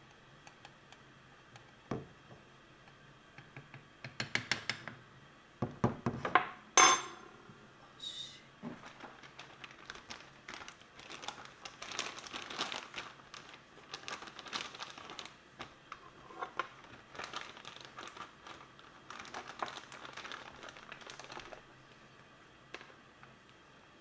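Metal spoon clinking and scraping against a plastic hair dryer and a powder container as baby powder is spooned into the dryer's nozzle. A few sharp clinks about six to seven seconds in, the loudest briefly ringing, then a long run of small scrapes and rustles.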